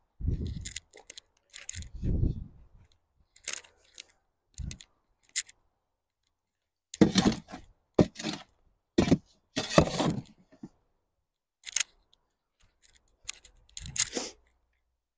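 A shovel scooping and scraping dry, sandy soil in short, separate strokes, with a run of louder strokes close together around the middle.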